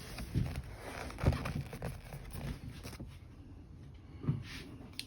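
Faint handling noises as upholstery material is pulled and positioned over a plastic armrest lid: light rustling with a few soft knocks.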